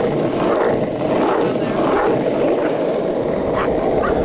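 Longboard wheels rolling over asphalt: a steady, loud rumble.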